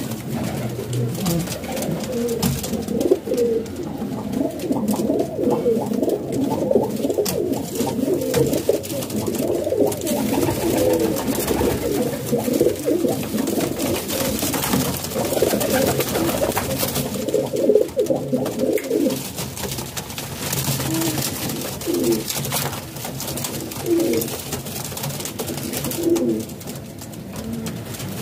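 A flock of Royal Teddy pigeons cooing, many birds at once in an overlapping chorus of low coos.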